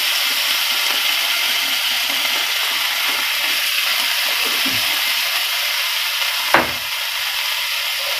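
Onions and capsicum sizzling steadily in hot oil in a non-stick frying pan as they are stirred with a spatula. There is one sharper knock about six and a half seconds in.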